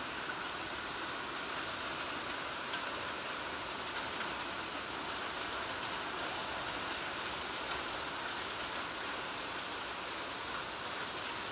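Hailstorm: rain and hail falling steadily on a corrugated metal roof, a dense, even hiss.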